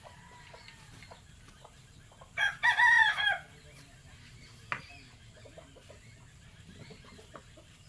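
A rooster crows once, loud and about a second long, a couple of seconds in. Faint clicks and scrapes from a wooden spatula stirring in a pot run underneath, with one sharper click a little later.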